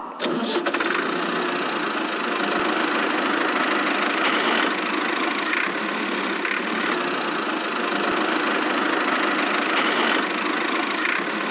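Small motor of a home-built miniature tractor running steadily: an even whirring with no deep rumble underneath.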